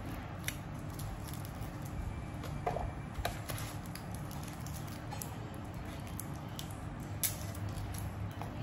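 Faint scattered clicks and scrapes of a small kitchen knife peeling shallots by hand, over a steady low hum.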